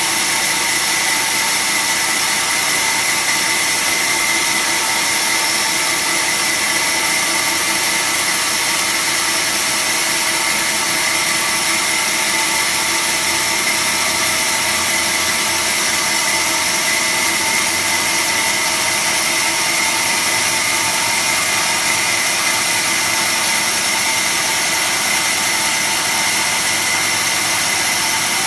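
Automatic band saw running steadily through a sheet-cutting cycle, a constant machine noise with a high steady whine.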